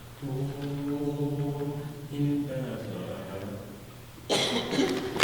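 High school madrigal choir holding the final chord of a song, which fades out about three seconds in; audience applause breaks out about a second later and quickly grows loud.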